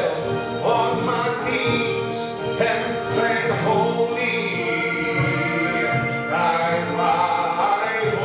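A man singing a gospel hymn solo into a handheld microphone, with long held notes.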